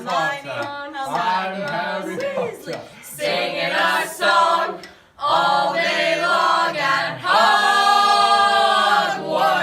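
Several young voices singing an overlapping a cappella chant, with a brief break about five seconds in, then building into a long held chord that stops just before the end.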